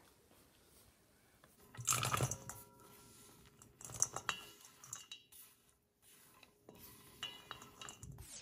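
Julienned carrot being tipped off a wooden cutting board into a stainless steel mixing bowl, with clatter and clinks against the metal bowl. The loudest burst comes about two seconds in, another about two seconds later, and lighter clinks follow near the end.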